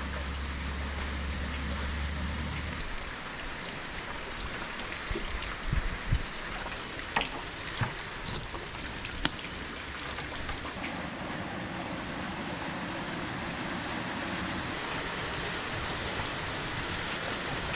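Sea water washing steadily, with a low hum that stops about three seconds in, a few scattered knocks, and a short run of high chirps about eight seconds in.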